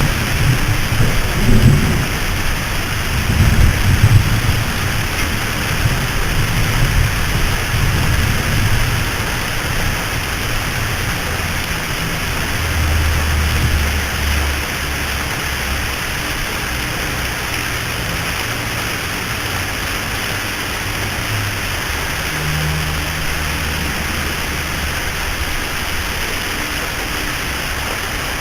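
Steady heavy rain hissing, with low thunder rumbling through it, strongest in the first several seconds and returning more faintly later.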